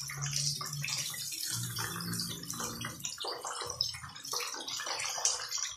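Chicken drumsticks sizzling and spitting in hot frying oil in a pan, with light clicks of metal tongs as the fried pieces are lifted out.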